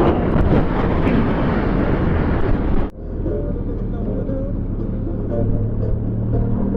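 Heavy wind rush on the microphone while riding the Benelli TRK 502 X, cut off abruptly about three seconds in. After that the bike's parallel-twin engine runs steadily, with much less wind.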